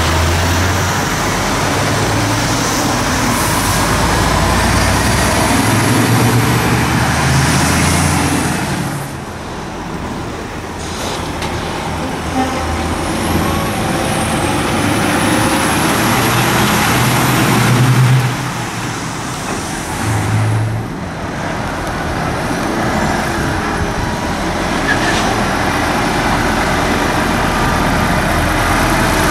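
Heavy articulated lorries' diesel engines pulling through a junction one after another, with tyre and traffic noise. The sound swells as each truck passes and dips briefly twice between them.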